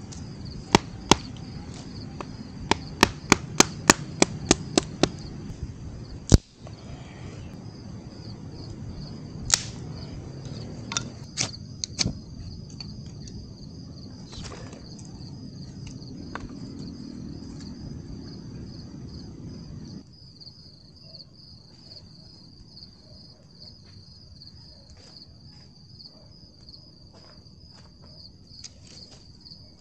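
Crickets chirping steadily, with a quick run of sharp wooden knocks in the first few seconds and one loud snap about six seconds in as sticks are cut and broken for a campfire, and scattered snaps later.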